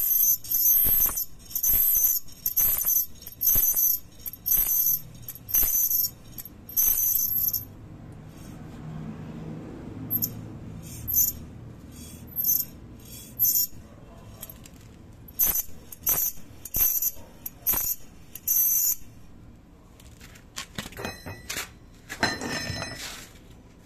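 Shrill, high-pitched metallic squeal from a brake caliper spring rubbing where it catches, in short repeated bursts at first about one every three-quarters of a second, then with irregular gaps. The catching spring is the source of the brake noise.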